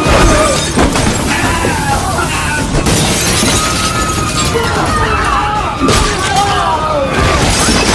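A loud, chaotic police-raid sound effect: glass shattering and crashing impacts, about three sharp hits, over a din of shouting voices.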